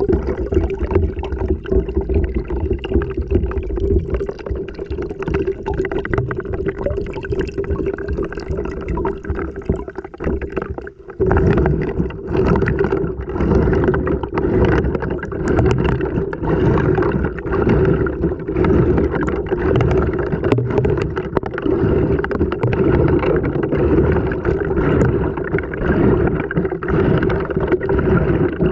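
Washing machine wash cycle heard from inside the drum: water sloshing and gurgling as the load tumbles, over a steady hum, with knocks. The sound swells and falls about every two seconds, with a brief drop near eleven seconds in.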